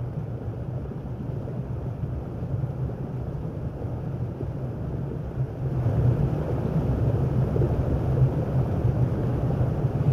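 Low, steady rumble of a spaceship engine sound effect, growing louder about six seconds in.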